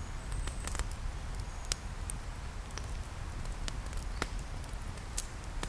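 Bacon sizzling on a rack over a campfire, with irregular sharp crackles and pops from the fire and spitting fat over a low rumble.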